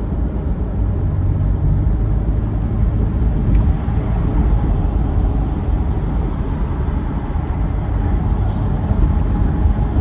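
Steady low rumble of a car being driven in city traffic: engine and tyre noise heard from inside the cabin.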